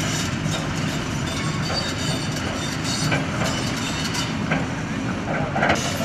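Hydraulic excavator's diesel engine running steadily as it works a pile of demolition rubble, with several clanks and crashes of broken concrete and debris, the loudest near the end.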